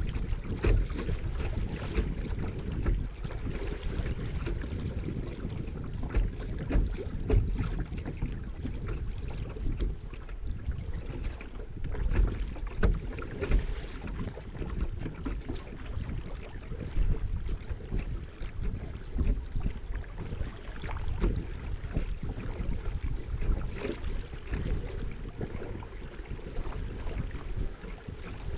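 Water sloshing and splashing against a kayak's hull close to the microphone as it moves down a shallow, riffled river: an uneven rushing with frequent small irregular splashes.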